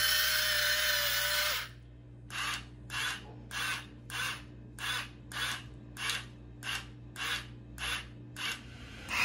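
Battery-powered Forlim electric salt and pepper grinder's motor whirring as it grinds. It runs continuously for about a second and a half, then after a pause runs in short, evenly spaced bursts, a little under two a second.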